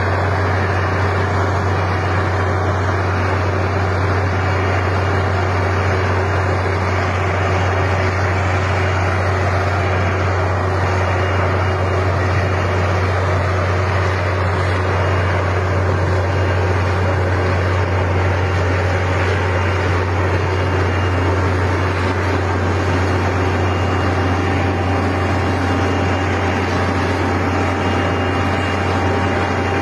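Rotary snow blower running steadily while it clears the road: a constant deep engine drone with a steady hiss of noise over it.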